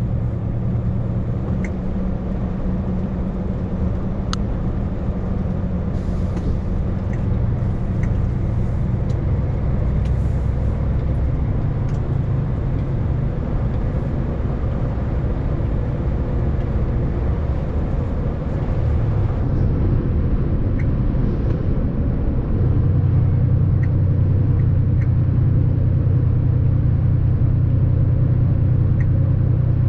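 Engine and road noise of a moving vehicle heard from inside the cab, a steady low drone. About three quarters of the way through the drone shifts in pitch and gets a little louder, as the engine pulls harder.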